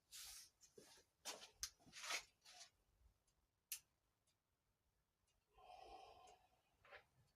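Faint scattered clicks and rustles: a cluster in the first two seconds or so, a single sharp tick a little past the midpoint, and a short soft rustle near the end. No engine is running.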